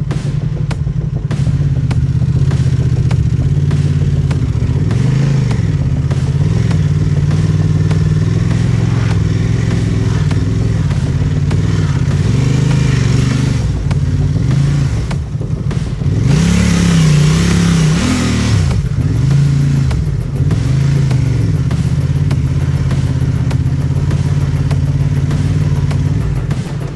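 Parallel-twin adventure motorcycle engine running under way off-road, the revs rising and falling repeatedly as the throttle is worked. Frequent knocks and rattles run under it, with a louder rush of noise about two-thirds through.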